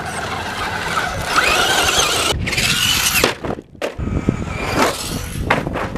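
Radio-controlled truck's motor whining, its pitch gliding up and down as it speeds up and slows, over a low rumble; the sound breaks off abruptly twice near the middle.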